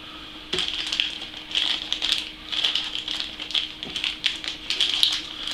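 Irregular rustling and light clicks of packaging and plastic-bagged parts being handled, over a faint steady hum.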